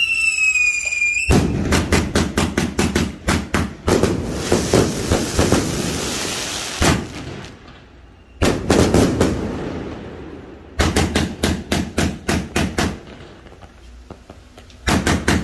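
A 245-shot consumer fireworks cake firing. A whistle drops in pitch and cuts off about a second in, then rapid volleys of shots with crackling follow in several bursts, separated by short pauses.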